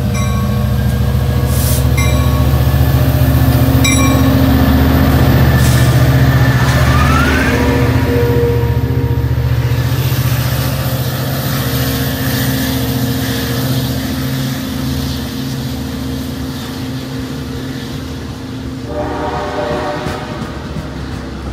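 Long Island Rail Road DE30AC diesel-electric locomotive running past close by, its engine loudest about six seconds in and then fading as the double-deck coaches roll by on the rails. A ringing strike repeats about every two seconds in the first few seconds.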